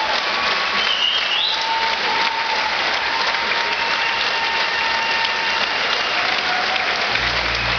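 Large concert audience applauding steadily, with a few faint held tones over the clapping. Near the end a low steady note comes in underneath.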